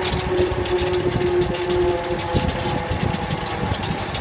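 Fan of a TFE731-40 turbofan turning slowly, its blades making a rapid, continuous metallic clatter over a steady hum. The blades sit loosely in their fir-tree root slots, slide in and out under gravity as the fan turns, and knock against each other: normal by design, not a fault.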